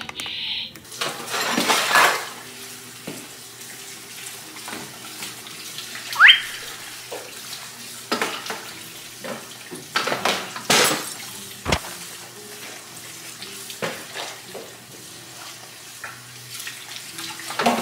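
Water running, with scattered knocks and clatter.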